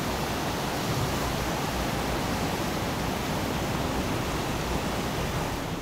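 Steady rush of fast-flowing river rapids: an even noise with a low rumble beneath it.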